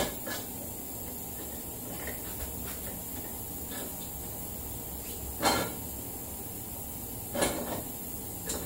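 Splined rear axle shaft of a Tao Tao 125cc ATV being worked by hand through the sprocket hub and axle carrier: a few short metal clunks and scrapes, the loudest about two-thirds of the way through, over a low steady hum.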